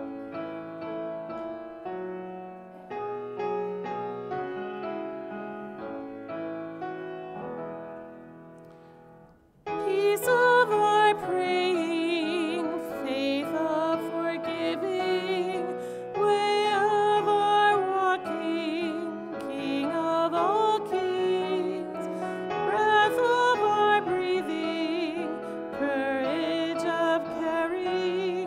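Piano playing a quiet hymn passage that fades out about nine seconds in. A louder section then begins: a hymn sung with vibrato over keyboard accompaniment.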